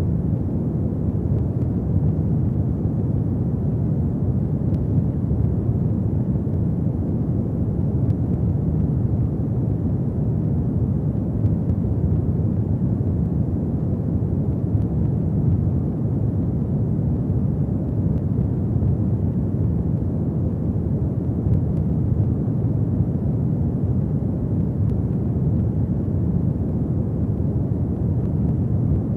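Fireplace fire burning with a steady low rumble, without distinct crackles or pops.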